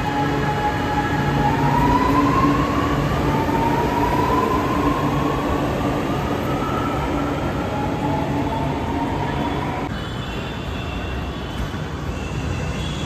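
Metro train pulling out of the station: its electric drive whines upward in pitch in several rising steps as it speeds up, over a steady rumble, and the whine eases off about ten seconds in.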